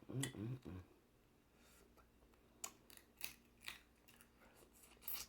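A few short "mm" sounds of enjoyment, then a handful of sharp clicks and cracks about half a second apart, made as cooked crab and prawn shells are pulled apart by hand.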